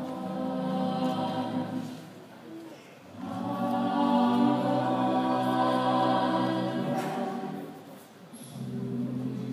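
High school a cappella choir singing in close harmony, holding long sustained chords. The singing drops away briefly about two and a half seconds in and again near the end before the next phrase swells up.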